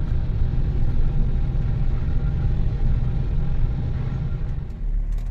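Steady low engine and road rumble inside the cab of a Mercedes Vito van while it drives along at speed.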